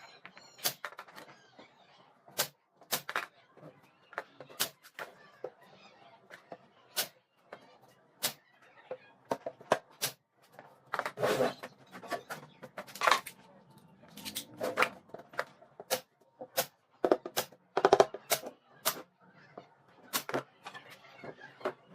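A run of irregular sharp knocks and clicks, a second or so apart, bunching closer and louder in the middle stretch, like hard objects being tapped and set down.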